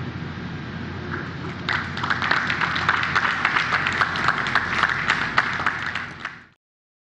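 Audience applause breaking out about two seconds in, many hands clapping irregularly over a steady low hum, then dying away quickly shortly before the end.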